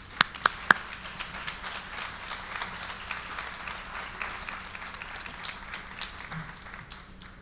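A room of people applauding. It opens with a few loud, sharp claps close to the microphone, then settles into dense clapping from the audience that fades toward the end.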